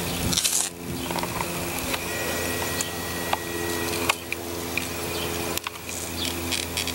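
Rustling and scraping from a handheld camera being carried across a lawn, with a few soft knocks, over a steady low mechanical hum.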